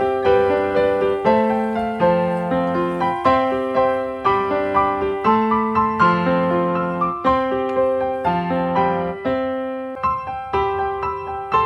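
Background music: a piano playing a gentle melody of separate struck notes that ring and decay, a few notes a second.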